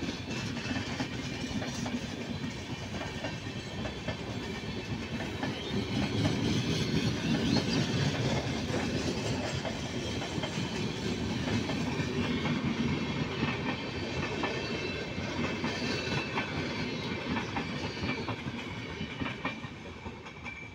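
Freight train passing at speed, its wagon wheels clattering steadily over the rail joints. The rumble grows loudest about a third of the way in and fades near the end.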